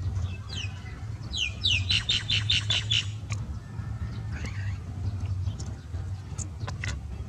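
A bird calling: a fast run of about ten sharp, falling notes starting about a second and a half in, with a few scattered chirps around it, over a steady low rumble.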